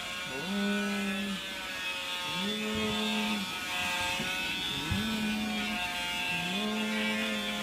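Handheld vacuum cleaner running with a steady whine as its nozzle is run through a cat's fur to suck up loose hair; a lower tone swells and fades away four times over it.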